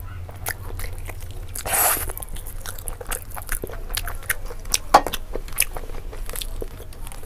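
Close-miked eating: a person gnawing and sucking meat off a cooked chicken leg bone, with many short wet mouth clicks and smacks. There is one longer sucking sound about two seconds in and a sharper, louder smack about five seconds in.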